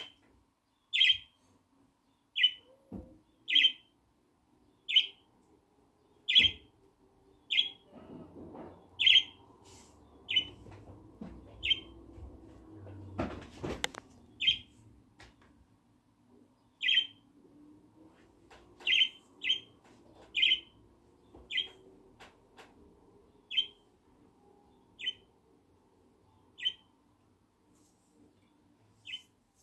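A bird repeating one short, high chirp over and over, about one call a second, sometimes two close together. Partway through there is a faint low rumble and a single sharp knock.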